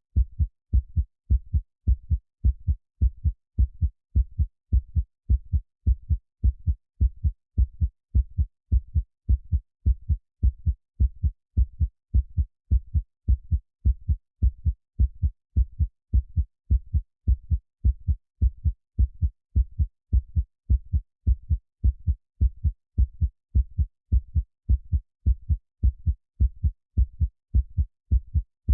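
Heartbeat sound: low thuds in a steady, even rhythm that runs without a break.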